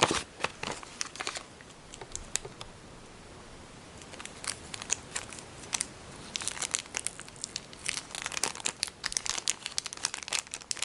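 Plastic packaging crinkling and crackling as it is handled, with a quieter stretch about two seconds in and dense crackling again from about six seconds in.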